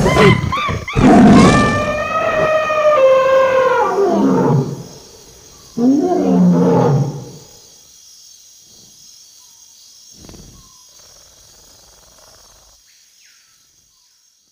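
A large animal roaring twice: a long roar whose pitch falls over about four seconds, then a shorter falling roar about six seconds in, before the sound fades away.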